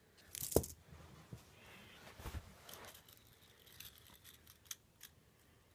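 Handling noise of plastic K'NEX pieces: a sharp knock about half a second in, a rustle of rubbing plastic, then scattered small clicks as the roller coaster car is moved by hand on the track.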